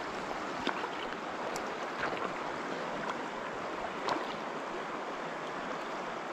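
Steady rush of a river's current flowing over riffles, with a few faint clicks.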